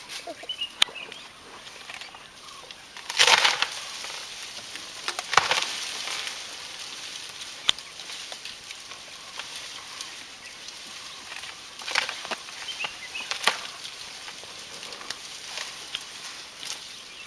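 Tree wood cracking and branches rustling in short, crackly bursts as an elephant pushes and breaks at a tree, with scattered sharp snaps between; the loudest burst comes about three seconds in, and others around five, twelve and thirteen seconds.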